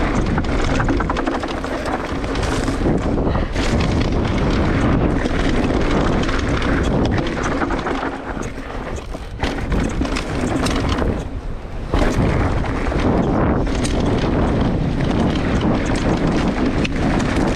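A new Canyon Strive:ON CFR Underdog 2023 mountain bike clattering continuously as it rides downhill over rough ground, a dense run of quick rattles that the bike has had since its first descent, over wind rumble on the microphone. The rattling eases for a few seconds about halfway through.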